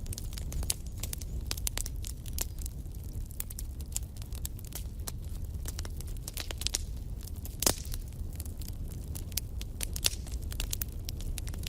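Wood fire crackling, with irregular sharp pops and snaps over a steady low rumble of the flames; one louder pop comes a little past the middle.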